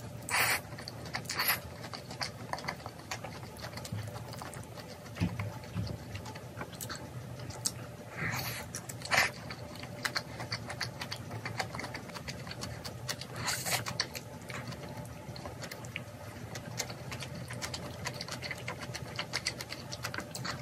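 Close-up eating sounds of bibimbap and spicy marinated raw crab: steady wet chewing and small mouth clicks, with a few short, louder slurps.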